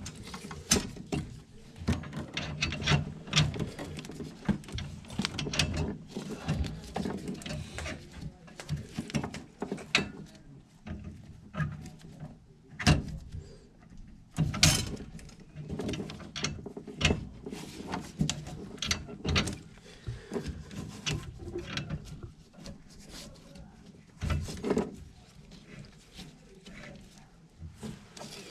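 Metal hand tools and fittings clinking and knocking in an irregular run of clicks and clanks, with a few louder clanks as work goes on at the gas piping.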